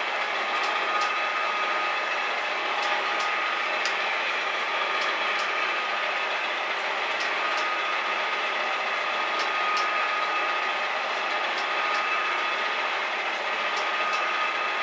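Metal shaper at work cutting steel: a steady mechanical drone of the drive and gearing with a constant whine, and scattered light ticks.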